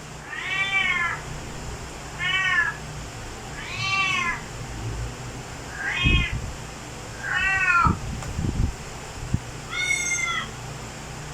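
A cat meowing six times in a row, each meow rising and then falling in pitch, with pauses of about a second or more between them. A few dull low thumps come in the second half.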